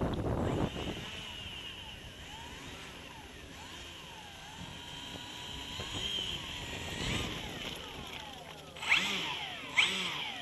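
Electric motor and propeller of an E-flite Maule M7 RC plane whining as it taxis after landing, the pitch rising and falling with the throttle, with two short, sharp throttle bursts near the end. Wind buffets the microphone in the first second.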